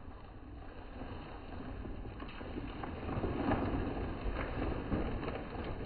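Plastic sack rustling and crinkling, with soft irregular handling sounds as remains are lifted and put into it, growing louder about halfway through.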